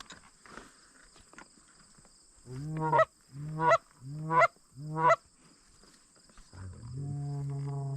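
Goose call blown by a hunter: four quick honks about 0.7 s apart, each breaking from a low note up to a high one, then a long low moan starting near the end, calling to approaching Canada geese.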